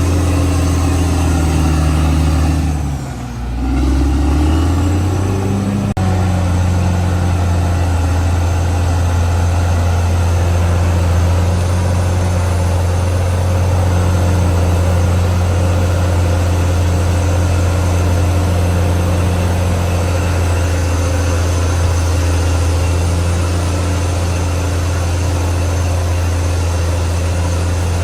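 Caterpillar D6R XL bulldozer's diesel engine running steadily. About three seconds in its pitch dips and quickly climbs back, then it holds a steady note.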